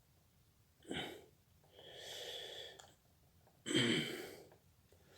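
A person breathing close to the microphone: four noisy breaths or sniffs about a second apart, the loudest starting sharply about two thirds of the way through.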